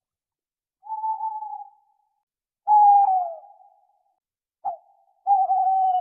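An owl calling: drawn-out whistled calls of one pitch, each about a second long. The second call is the loudest and slides down in pitch at its end, and a short clipped note comes just before the last call.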